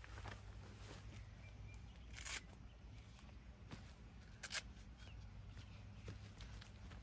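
Shoes scuffing on a dirt track as a person steps about and slips their shoes off, with two short sharp scuffs about two seconds apart over a low steady outdoor rumble.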